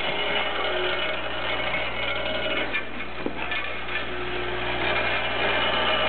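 Hex-head bolt step feeder running: a steady mechanical hum and clatter from the machine and the bolts it moves, with a couple of short clicks about three seconds in.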